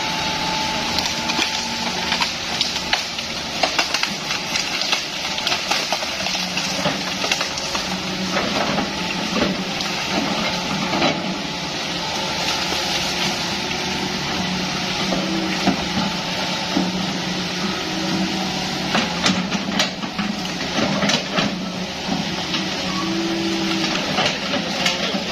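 Bamboo cracking and splintering in many sharp snaps as a Hitachi excavator pushes over and rolls it through brush. The excavator's diesel engine runs underneath, its pitch rising about six seconds in as the machine works harder.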